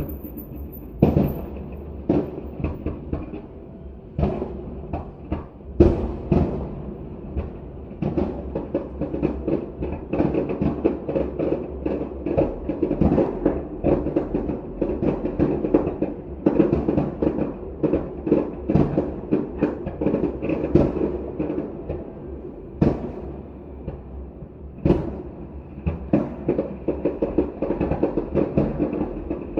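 Aerial fireworks bursting: sharp booms a second or two apart at first, then a dense run of rapid bangs and crackling for about a quarter of a minute, thinning back to single booms near the end.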